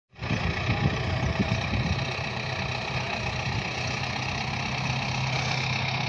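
Farm tractor's diesel engine running steadily at a low, even pace.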